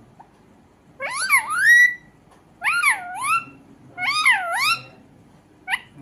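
Rose-ringed parakeet (Indian ringneck) giving four high-pitched, swooping calls, each under a second long, spaced about a second and a half apart.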